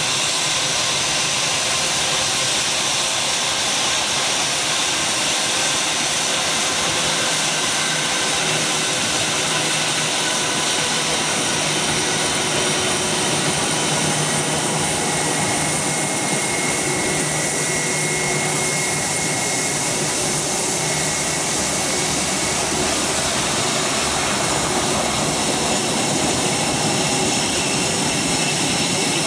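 Airbus A321-231's twin IAE V2500 turbofan engines at taxi power: a steady jet whine with several high, held tones over a rushing hiss.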